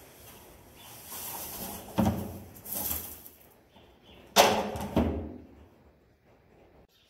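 A lariat swishing through the air, and a hollow plastic barrel knocking and thudding twice, the louder knock about four and a half seconds in, as the barrel is moved upright beside the horse.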